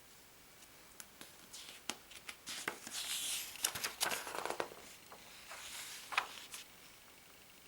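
Glossy magazine paper being handled: rustling and crinkling with scattered small clicks and taps as pages are turned, loudest in the middle and again shortly before the end.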